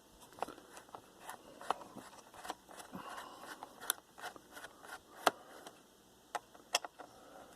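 Faint, irregular small clicks and scrapes of a screwdriver and hands working the captive screws and plastic bottom cover of a laptop.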